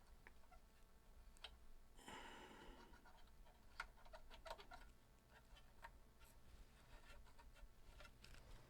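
Near silence with faint clicks and light scratching from small hand work on the drive's parts, and a short hiss about two seconds in.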